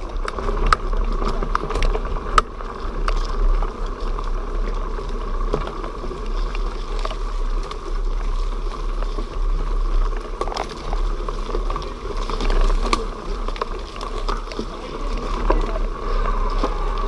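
Mountain bike rolling along a dirt trail, with a steady low rumble of air on the microphone and frequent sharp clicks and rattles as the bike goes over bumps.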